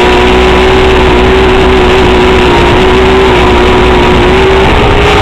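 Motorboat engine running steadily at speed over the rush of its wake, its note shifting slightly near the end.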